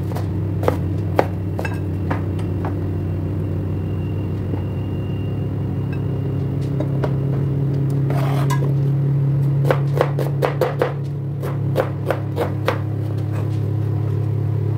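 Kitchen knife chopping onion on a plastic cutting board: a few separate taps early on, a scraping sound about eight seconds in, then a quick run of chops around ten to twelve seconds in. A steady low hum runs underneath.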